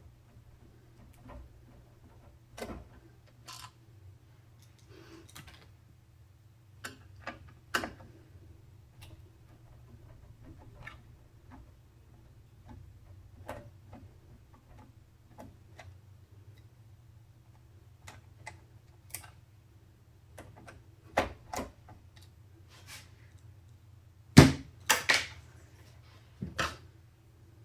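Scattered clicks, taps and knocks of computer parts being handled during a PC build, with a cluster of sharper knocks near the end, over a steady low hum.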